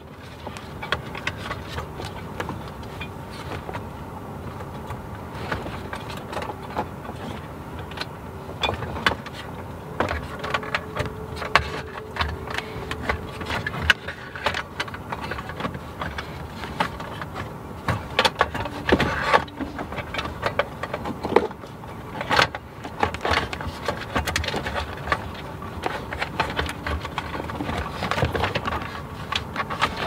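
Plastic centre-console trim and wiring connectors of a BMW E46 being handled: many scattered clicks, taps and rattles as connectors are unplugged and trim pieces are worked loose, with a few louder knocks about two-thirds of the way through.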